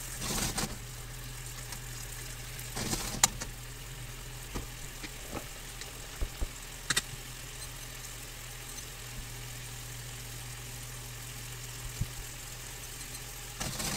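Cherry tomato sauce simmering and bubbling in a frying pan just after pasta cooking water has been added, over a steady low hum. A few light utensil clicks break in, the clearest about three seconds and seven seconds in.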